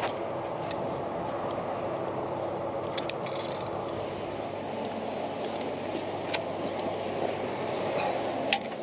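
Steady rumble of motorway traffic and running vehicles on the hard shoulder, with a few short metal clicks as the tow strap and hook hardware are handled, about three seconds in, twice around six seconds and once near the end.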